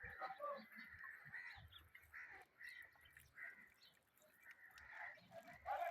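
Faint bird calls, short and repeated every half second or so.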